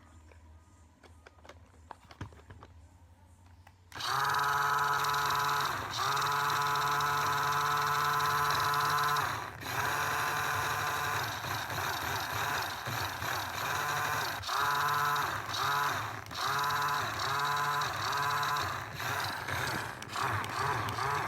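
Toy RC car's small electric motor and gears whining, switched on suddenly about four seconds in and held at a steady pitch for several seconds. It then runs in short throttle bursts, more than one a second, each spinning up in pitch and dropping off, on a freshly charged lithium-ion battery.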